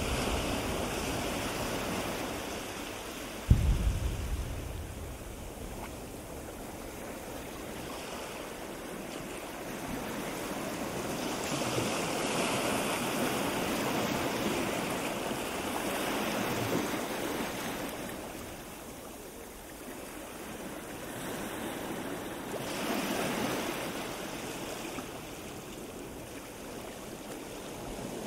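Wind blowing across the camera microphone, a steady rushing that swells and fades in slow gusts, with one low thump about three and a half seconds in.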